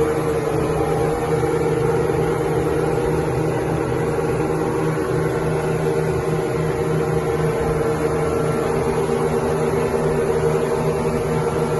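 Yamaha outboard motors of a speedboat running at a constant speed, a steady engine hum that holds one pitch.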